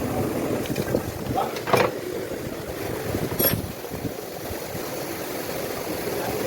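Two sharp metallic clinks about a second and a half apart, typical of tools or steering-rack parts being handled, over a steady mechanical background hum.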